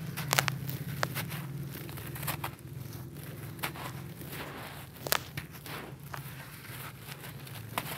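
Hands crushing and rubbing a large bucket-molded block of dry red dirt: gritty crunching and crumbling, with sharp cracks as pieces break off, the loudest about half a second in and about five seconds in. A low steady hum lies underneath.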